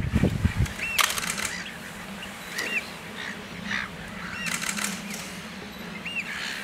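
Short, high, rising-and-falling peeps from a common crane chick, about five of them scattered a second or two apart, over a faint steady low hum. A low rush dies away in the first half second, and brief crackling rustles come about a second in and again around four and a half seconds.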